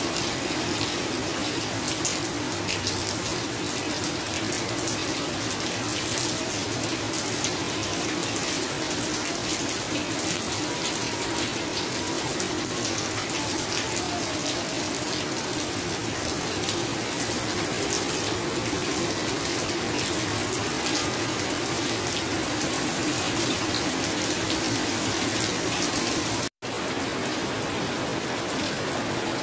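Heavy rain pouring steadily, splashing into puddles on a paved balcony floor. A momentary gap in the sound about 27 seconds in, after which the rain falls on clay-tile and corrugated roofs.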